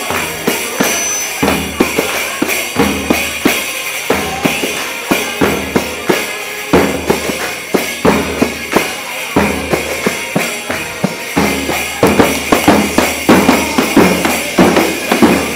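Egyptian zaffa wedding percussion: a large bass drum struck with a stick and a tambourine-like jingled frame drum (riq) playing a loud, fast, steady beat.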